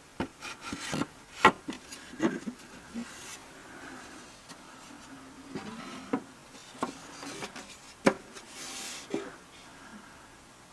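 Handling noises: about seven sharp knocks and taps, the loudest about a second and a half in, with scraping and rubbing in between.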